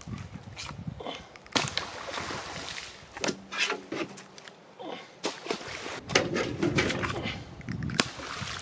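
A pitchfork knocking and scraping in a wheelbarrow tub as a load of salmon carcasses is forked out of it, with irregular clatters and thuds as the fish shift and drop.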